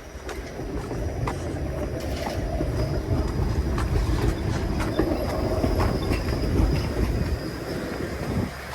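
A Toronto streetcar running past on its rails, with scattered clicks of the wheels over the track and a thin steady high whine, growing louder to a peak about two-thirds of the way through and falling away near the end.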